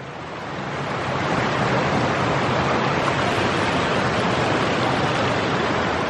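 Steady rushing water of a mountain stream or small cascade, rising over the first second and then holding even.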